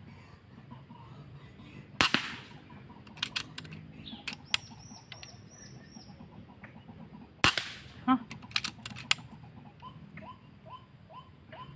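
Two shots about five and a half seconds apart, each sharp and loud and followed by a few quicker, smaller clicks. Short calls repeat about twice a second near the end.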